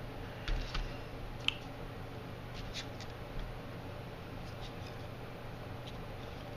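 Scattered light clicks and rustles of small quadcopter kit parts and their plastic bags being handled, over a steady low hum.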